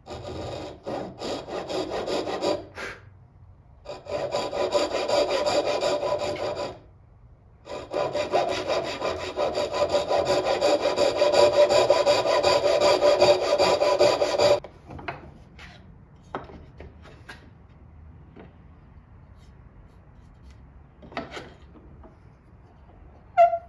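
A hand tool worked against wood in fast, even strokes, in three spells with short pauses. After that come a few light knocks and taps, and a sharp click just before the end.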